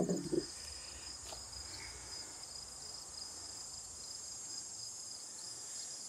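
Insects trilling steadily at a high pitch, a continuous background chorus.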